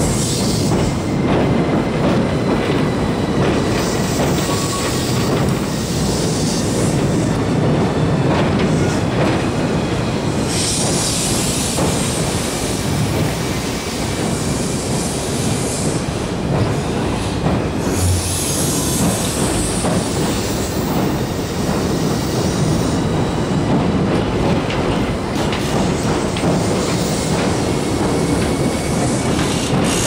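Tobu limited express Ryōmō train crossing a steel railway bridge close by: a continuous loud rumble of wheels on the girders with a faint, steady high squeal, and a high hiss that swells and fades every few seconds.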